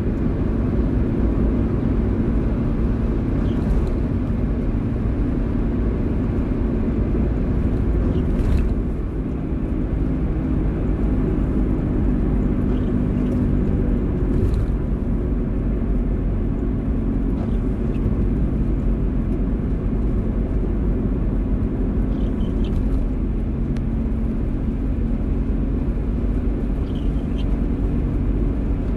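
A car driving in the rain, with a steady low engine and road rumble and rain noise over it. There is a slight dip in level about nine seconds in.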